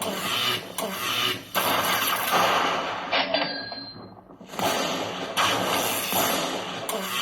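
Electronic slot machine sound effects during a bonus round: a run of dense, noisy whooshing bursts with short breaks, dropping away briefly about three to four seconds in before starting up again.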